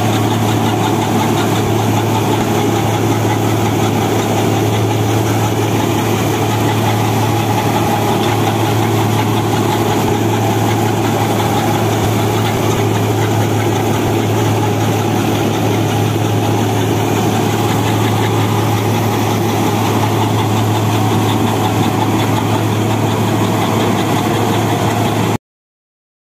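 Turbocharged Mahindra Arjun Novo 605 tractor's four-cylinder diesel engine running steadily under load while driving a straw reaper through its PTO, the reaper's rotating machinery clattering along with it. The sound cuts off suddenly near the end.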